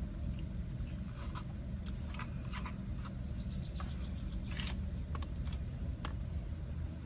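Steady low rumble of a running car, with scattered short clicks and crunches of eating: chewing and a utensil against a food container.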